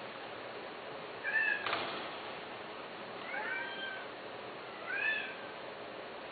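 A cat meowing three times in short calls that rise and fall in pitch, with a single sharp knock about a second and a half in.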